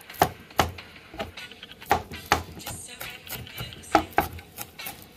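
Chef's knife chopping Spanish thyme leaves on a plastic cutting board: sharp, uneven knocks of the blade on the board, about two a second.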